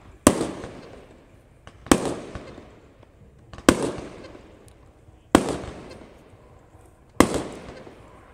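Fireworks going off: five loud bursts, one about every second and three-quarters, each trailing off into a rumble that dies away, with faint small pops between.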